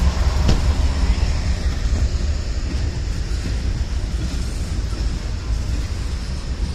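Slow-moving freight train passing. A mid-train diesel locomotive's low engine hum is strongest at the start, then gives way to the steady rumble of intermodal flatcars with truck trailers rolling over the rails. There is one sharp knock about half a second in.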